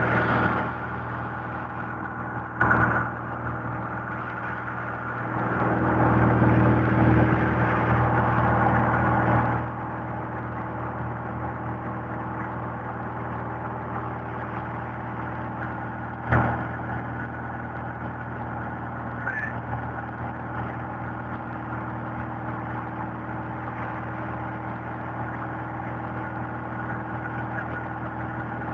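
Single-engine light aircraft's engine and propeller droning steadily, heard inside the cabin. A louder rush of noise comes about five seconds in and lasts about four seconds, and there are two sharp knocks.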